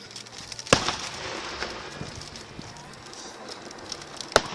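Two sharp aerial firework bangs, one about a second in and the other near the end, each with a short echo after it.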